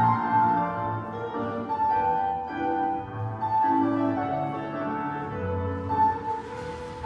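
Classical piano music playing, with sustained notes moving in a steady phrase.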